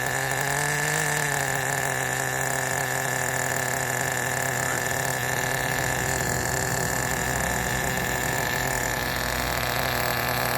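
Small nitro engine of a Team Associated NTC3 1/10 RC touring car idling steadily after being pull-started, with a brief slight rise in pitch about a second in.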